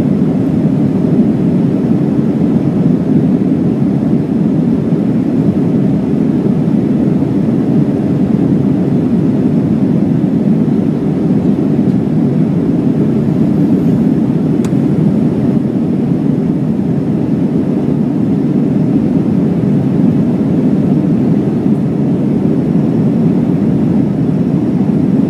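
Steady jet airliner cabin noise in flight: the constant low rush of the engines and airflow, heard from a window seat inside the cabin.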